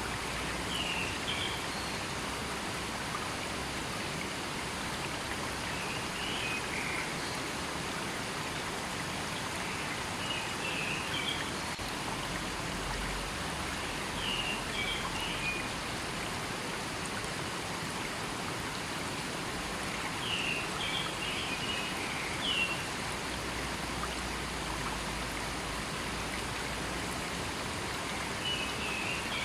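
A river running steadily, a constant rushing water noise. Short high-pitched chirps come in small clusters every four to six seconds.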